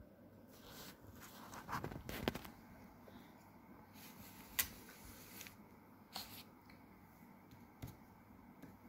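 Faint handling noises from hands working on a glass bottle: soft rustles, with a cluster around two seconds in and a few sharp clicks spread through the rest.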